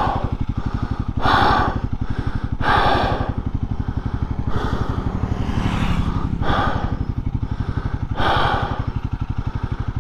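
Royal Enfield Himalayan 450's single-cylinder engine idling with an even, steady beat, under the rider's heavy breathing, about seven loud breaths close to the microphone, as he is out of breath.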